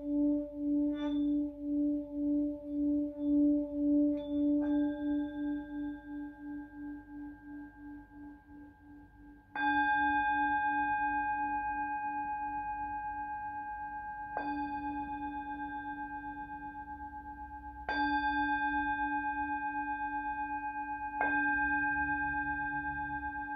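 Tibetan singing bowl giving a deep, wavering hum that pulses about twice a second and slowly fades. It is then struck five times, the first softly, each strike ringing out and dying away before the next.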